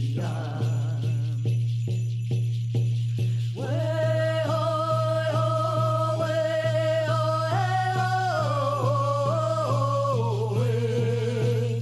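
Music playing: a song with a steady beat and a constant bass note, and a singing voice that comes in about three and a half seconds in with long held notes.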